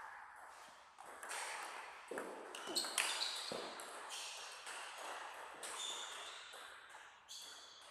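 Table tennis rally: the plastic ball clicks off rackets and table in a quick series of hits between about one and three and a half seconds in, and the point ends there.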